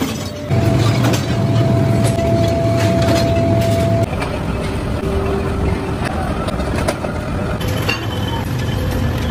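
Factory machinery running in a leaf spring shop: a dense, steady rumble with scattered metallic clanks and knocks, and a steady high tone through the first few seconds. The sound changes abruptly several times.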